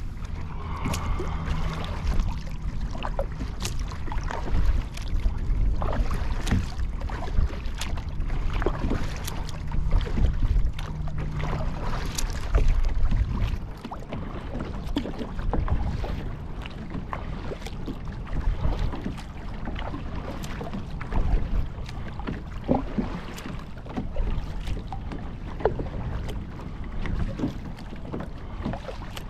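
Wind rumbling on the microphone, with water lapping and frequent small knocks and splashes against a kayak's hull.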